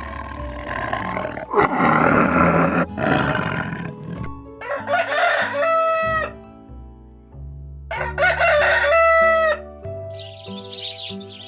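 An animal's harsh, noisy call in the first few seconds, then two long pitched calls about three seconds apart, each falling away at the end, over background music.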